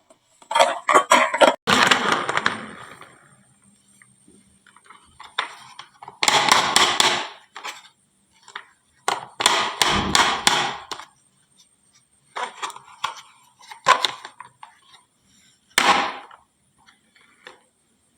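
Glass marbles clattering down a wooden marble run, in several bursts of rapid knocks and clicks with short pauses between.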